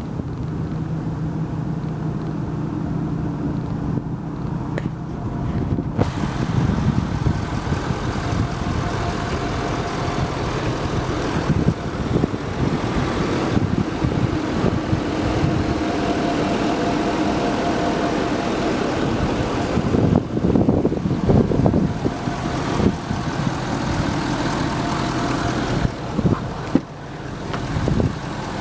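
Ford 6.7L Powerstroke V8 turbodiesel idling steadily. A few knocks come near the end.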